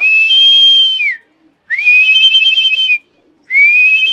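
Three long, level whistles, each about a second long, the first and last ending with a downward slide, with short pauses between them.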